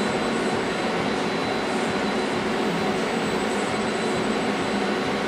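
Steady mechanical hum and hiss with a faint high whine, from the Fanuc S-420iF robot cell with its servo drives engaged while the arm is jogged slowly by hand.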